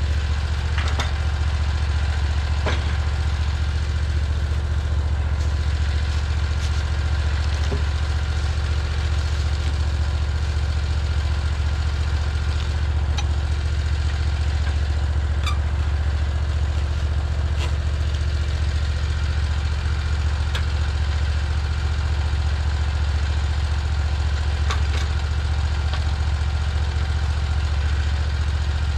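Small gasoline engine of a portable bandsaw sawmill idling steadily, with occasional light knocks as the log is levered and clamped on the steel mill bed.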